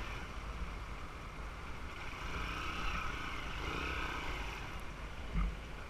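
Small motorbike riding along a rough dirt track: the engine runs steadily under a low rumble of wind and road noise, with a single thump about five seconds in.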